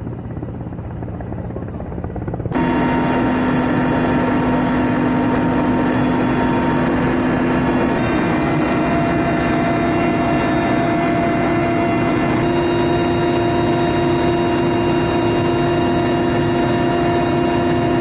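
Mi-8-family twin-turbine firefighting helicopter carrying a slung water bucket, flying overhead. About two and a half seconds in, the sound changes abruptly to the loud, steady turbine whine and rotor noise heard inside the cabin, with many steady tones.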